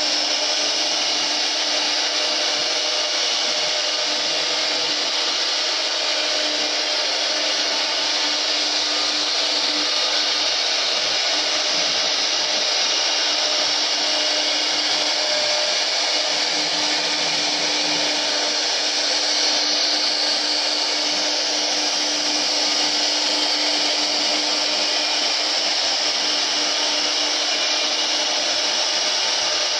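3-axis CNC router spindle running steadily as it carves wood, a constant motor hum under the cutting noise.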